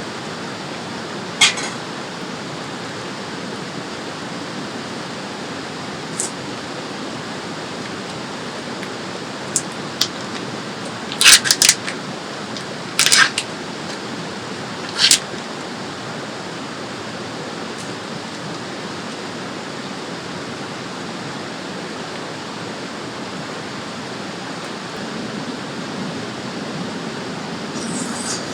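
Steady rushing of a river flowing past, with scattered sharp clicks and knocks of camp gear being handled. The knocks come in a cluster about eleven to fifteen seconds in.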